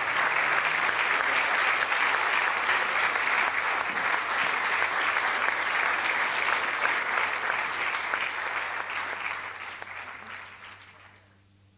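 An audience applauding steadily, then fading away near the end.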